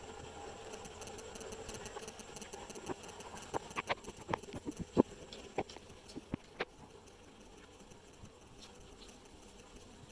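Kittens playing with and chewing crinkly scraps on a rug: a quick scatter of sharp clicks and taps in the middle, with no meowing.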